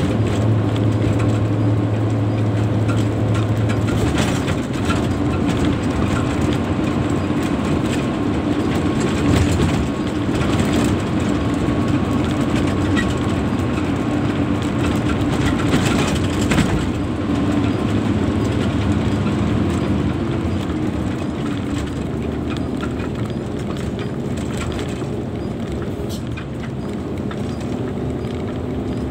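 Hino 260 JD dump truck's six-cylinder diesel engine running steadily, heard from inside the cab on a gravel haul road, with cab rattle and tyre rumble and a few sharp knocks from bumps.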